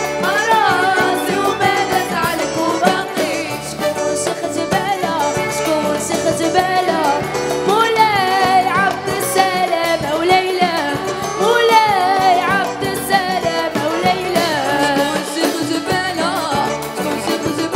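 Women singing a Moroccan Arabic song into microphones, with wavering, ornamented melody lines, over instrumental accompaniment.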